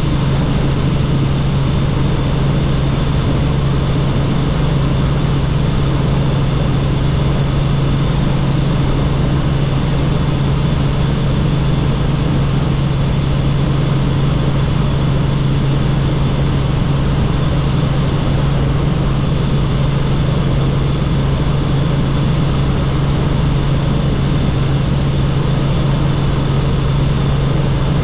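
Helicopter in flight: a loud, steady drone with a strong low hum that does not change.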